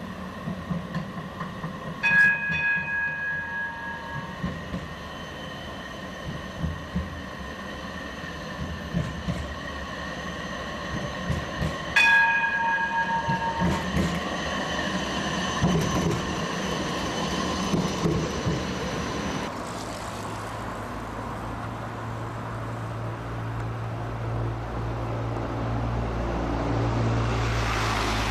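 Siemens Combino D1-class tram running past with a steady electric whine from its traction gear and wheels on the rails, and its gong struck twice, about two seconds and about twelve seconds in, each ring fading over a couple of seconds. About two-thirds of the way through the sound changes to a steady low hum of traffic.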